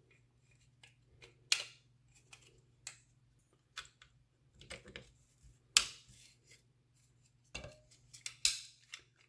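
Small steel pistol parts clicking and clinking as a CZ P10F's trigger assembly is handled and fitted back into the frame: scattered sharp clicks at irregular intervals, three of them louder than the rest.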